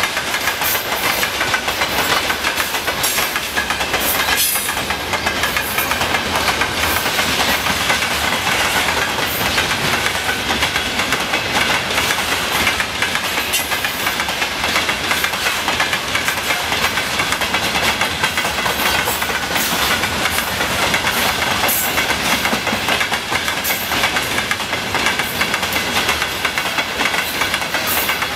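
Freight train wagons, hoppers and log-loaded timber flatcars, rolling steadily past close by: steel wheels clacking over rail joints in an uneven run of clicks over a continuous rush of rolling noise.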